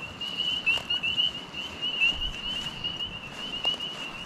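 An insect trilling: one steady, high-pitched run of rapid pulses that goes on without a break.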